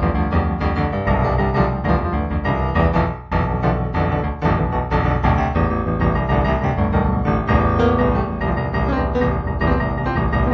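Background piano music, a continuous run of notes with a short break about three seconds in.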